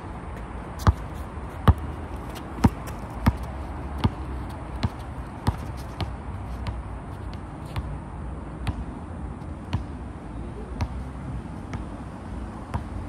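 Basketball dribbled on an outdoor asphalt court: a series of sharp bounces, about one a second, that grow fainter and sparser as the players move away.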